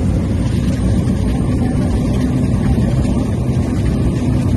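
Steady, unbroken drone of an aircraft's engines heard from inside the cabin, with a deep, even hum.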